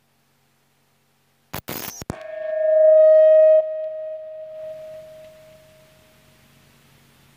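A few short clicks or knocks, then a single steady ringing tone that swells for about a second, drops sharply, and fades away over the next few seconds.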